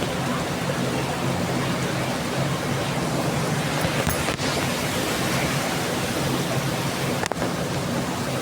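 Heavy tropical rain pouring down steadily, a dense, even hiss.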